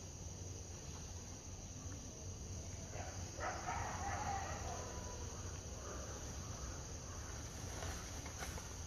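A bird's harsh call about three and a half seconds in, lasting about a second, over a steady high buzz.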